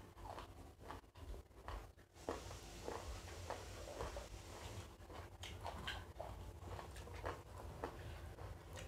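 Faint, irregular eating sounds: chewing and biting, with small clicks and smacks of fingers picking food off glass plates.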